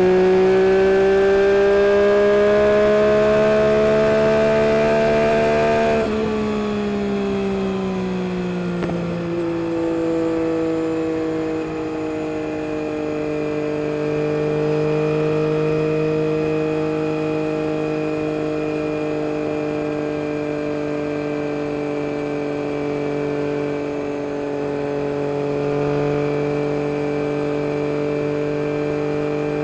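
Yamaha MT-09 SP's inline-three engine through an Akrapovic carbon race exhaust, running under way. It rises slowly in revs for the first few seconds, drops off about six seconds in, then holds a nearly steady cruise.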